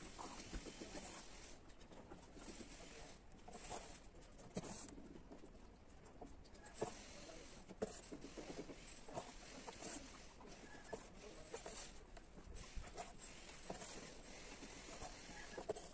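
Faint rustling and small scratchy clicks of hand embroidery, a needle and thread drawn through coarse cloth held in a plastic hoop, with faint birds calling in the background.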